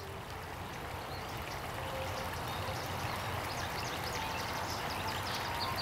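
Outdoor ambience: a steady rushing hiss like running water, fading up over the first couple of seconds, with many short high bird chirps scattered through it.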